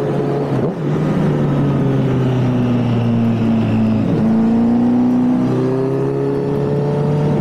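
Honda CBR1000RR's inline-four engine running under way, heard from the rider's position with wind rushing over the microphone. Its pitch sags slowly, dips about four seconds in, then rises again.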